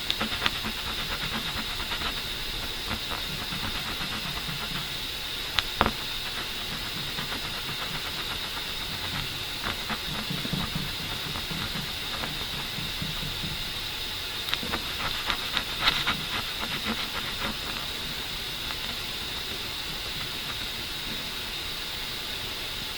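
A steady hiss throughout, with scattered light clicks and taps, a few more of them about 15 to 17 seconds in.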